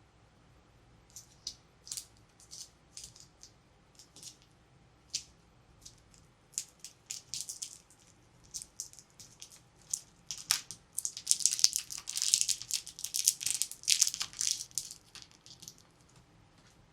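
Plastic toy packaging being handled: scattered crinkles and clicks, then about ten seconds in a dense, louder stretch of crackling that thins out near the end.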